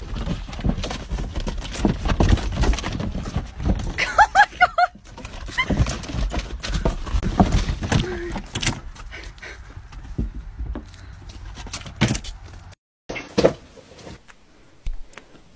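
Irregular knocks, bumps and rustling around a car, with a quick run of about five short, high, squeaky cries about four seconds in; after a brief drop-out the sound goes faint, with only a few soft knocks.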